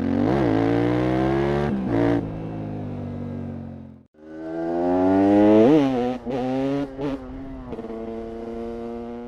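KTM 690 SMC R's LC4 single-cylinder engine in two short takes, split by a brief silence about four seconds in. In each, the engine revs up sharply once, then its speed falls away and settles into a steady lower note.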